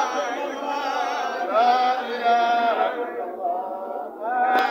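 Religious chanting in long, held melodic notes that glide between pitches, dipping softer for about a second past the three-second mark. A single sharp click near the end.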